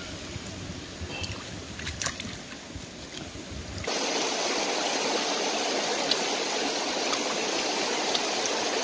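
Shallow rocky stream running over stones. For the first four seconds it is softer, with a few sharp clicks. Then it becomes a louder, steady rush.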